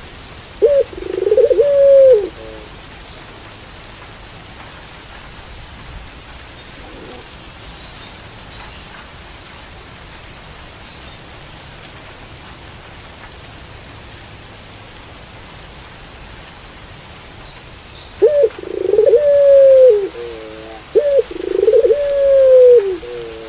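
Caged puter pelung (ringneck dove) cooing in low calls that fall in pitch: a short coo and a longer one just after the start, then a long gap, then a run of several long coos from about three-quarters through. Under the coos runs a steady rain hiss, with a few faint high chirps in the gap.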